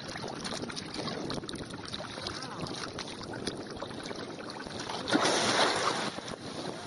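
Lake water sloshing and splashing around a swimming elephant's head, with wind buffeting the microphone. A louder rushing surge comes about five seconds in and lasts about a second.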